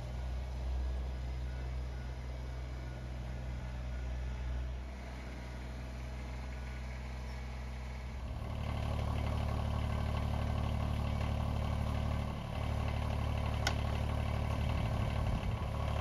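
Kubota BX2822A compact tractor's diesel engine running steadily. It is fainter at first, then louder from about halfway, and a single sharp click comes near the end.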